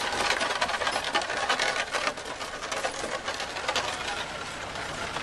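Ox cart rolling past, drawn by a pair of oxen: a dense, rapid clatter from its spoked wheels and the animals' hooves on the road.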